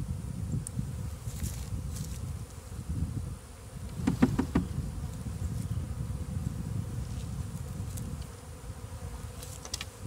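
Swarm of honey bees buzzing steadily, with a short burst of knocks about four seconds in.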